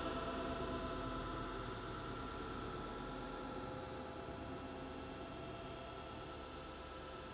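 Crystal singing bowls sounding several steady ringing tones at once, as a sound-healing soundscape, slowly fading.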